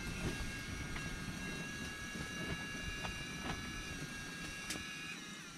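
Small electric motor of an ice-fishing reel winding in line with a steady high whine, which drops slightly in pitch and stops about five seconds in. A few light clicks sit over a low background rumble.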